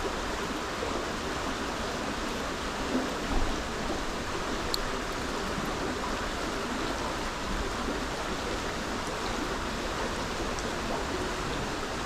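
Small stream's water rushing steadily, with a couple of light knocks about three seconds in.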